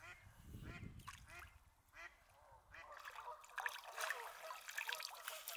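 Waterfowl calling repeatedly across the lake, faint, with many short quacking and honking calls that grow busier after about three seconds. A few splashes about four seconds in come from a released carp kicking away in the shallows.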